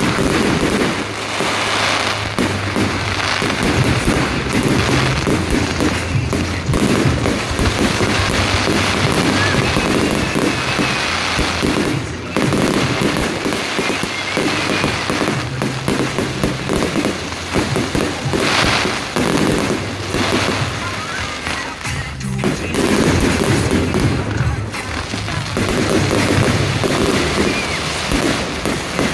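Fireworks display: a dense run of aerial shell bursts and bangs going off in quick succession, with music playing under it.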